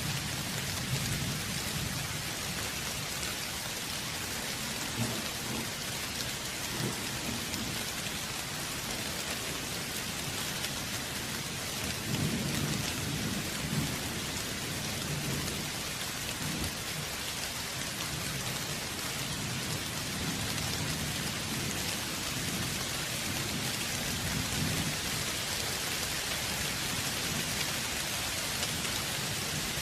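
Steady rain falling, with low rolls of thunder rumbling underneath now and then; the strongest comes about twelve seconds in.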